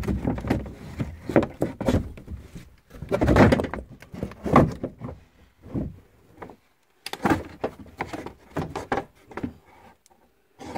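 Audi A4 B8's plastic rear package shelf being lifted and manoeuvred out of the car cabin: irregular knocks, scrapes and rustles of the trim panel bumping against the surrounding interior.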